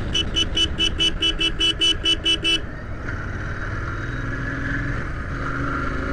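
A horn beeps rapidly, about a dozen short beeps at roughly five a second, then stops. After it comes the steady sound of the Royal Enfield Continental GT's engine and road noise at speed.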